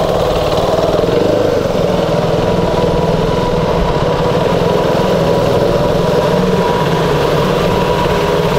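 KTM 390's single-cylinder engine running at steady revs while being ridden, with light wind and road hiss, picked up by a lavalier mic on the rider.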